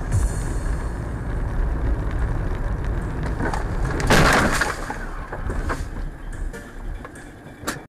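Low rumble of a car driving, heard from inside the cabin, then about four seconds in a short loud crunch as another car strikes its front right side, followed by scattered clicks and knocks.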